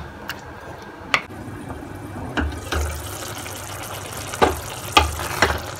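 Mutton and raw-mango curry simmering in an open pan: a steady bubbling hiss with a few single pops and plops.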